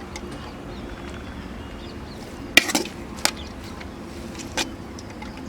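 Dishes and utensils clinking in a few sharp knocks: a quick cluster about halfway through and one more about a second later.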